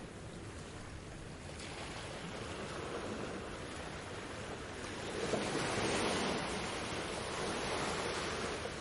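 Sea waves washing onto a beach: a steady wash of surf, with a wave building about halfway through to its loudest and then slowly receding.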